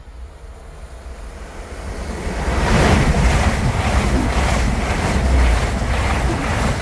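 A train passing at speed: a rushing noise with a deep rumble builds over the first two or three seconds, then holds loud with a regular beat running through it.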